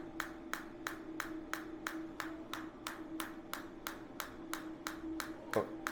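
Focused shockwave therapy device firing pulses into a foot: a regular train of sharp clicks, about three to four a second, over a steady hum.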